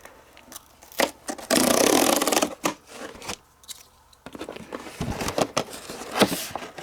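A cardboard trading-card box and its packaging being opened and handled: sharp clicks and taps, a loud rasping, tearing noise lasting about a second, then rustling and scraping of card.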